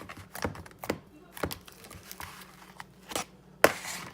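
Slime being squished and poked by hand: a series of short clicks and pops, the loudest about three and a half seconds in.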